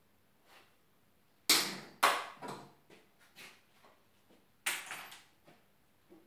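A few sharp clacks and knocks, with smaller clicks after them, of small metal hand tools and parts handled and set down on a wooden workbench: two loud knocks about half a second apart early on, then another loud one near the end.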